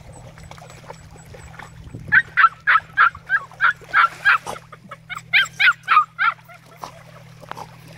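Giant Schnauzer puppy whining and yipping in quick runs of high, falling cries, about three a second, starting about two seconds in, pausing briefly, then a few more about a second later.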